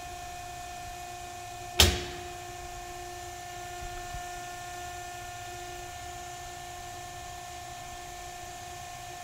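Tube bender running with a steady electric hum and whine, and a single sharp metallic clank about two seconds in that rings on for a few seconds.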